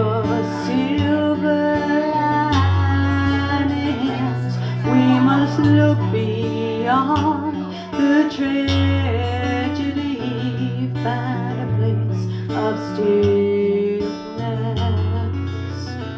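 Live acoustic guitar with a woman singing a slow, wordless melody over it.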